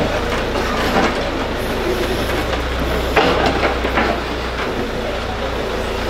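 Excavator engine running steadily while the steel bucket digs and scrapes through soil and broken paving, with a few sharp clanks, the loudest just after three seconds in.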